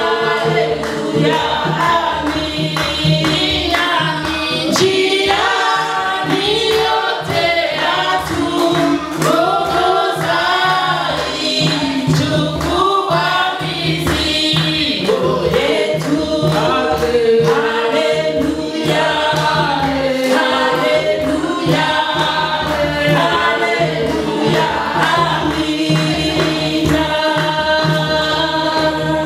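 A choir singing a gospel song, with a steady low beat underneath.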